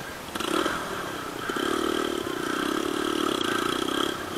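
Enduro motorcycle engine running. It comes in about a third of a second in and holds a fairly steady note, dipping briefly near the end.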